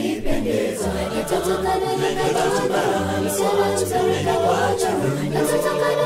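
A cappella vocal group of men and women singing in several-part harmony, with low bass notes under the upper voices.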